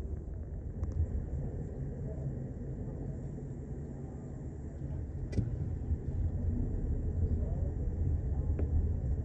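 Steady low rumble of city street traffic, with faint voices in the background and a few short sharp clicks.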